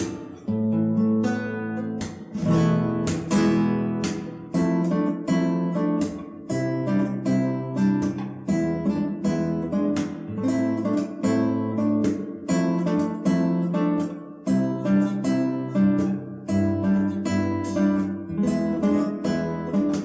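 Acoustic guitar playing a fingerpicked étude of arpeggiated chords in an even, calm rhythm, with a recurring two-note motif, E and D, that is meant to recall a distant siren.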